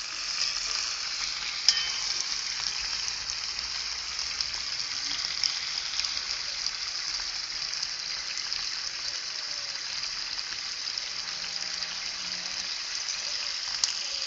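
Pieces of rooster sizzling steadily in hot oil in a pot over a wood fire as the meat browns, with scattered small pops and one sharper pop near the start.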